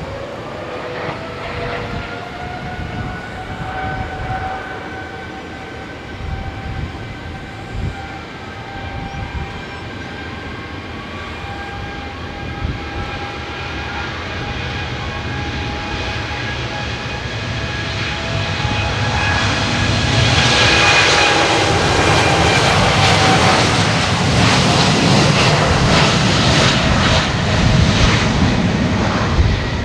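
Jet airliner engines: a steady turbine whine with several tones over a low rumble, growing louder until a full, loud roar fills the last ten seconds as the aircraft passes close.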